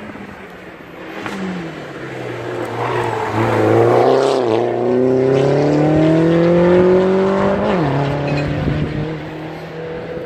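Hill-climb race car's engine revving hard as it comes up the road. The pitch rises steadily, dips briefly about four and a half seconds in, then drops sharply near eight seconds and carries on lower.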